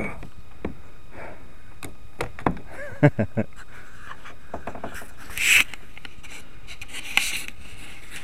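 Scattered knocks, rubs and scrapes of handling and movement, with a cluster of louder knocks about three seconds in and a short rushing scrape about five and a half seconds in.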